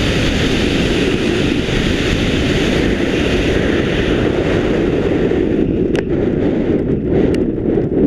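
Wind rushing over the camera microphone during a parachute descent; it eases off about five and a half seconds in, and a few sharp knocks follow near the end as the skydiver lands on the grass.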